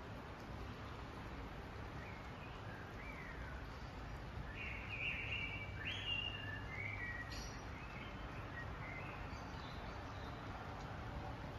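Several short bird calls and chirps over a steady low rumble of distant city traffic. The calls are loudest about halfway through.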